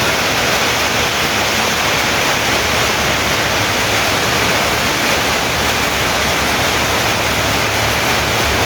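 Heavy storm downpour, loud and steady.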